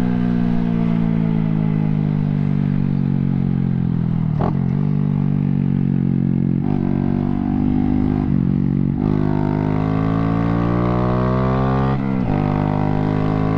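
A Honda Grom's small air-cooled single-cylinder four-stroke engine running under way at a steady pace. Its note sags and climbs slightly, with four short breaks in it, under low rumble.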